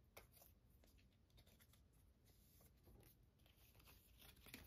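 Near silence, with faint scattered taps and scrapes of photocards being handled and slid on a tabletop, one slightly louder tap near the end.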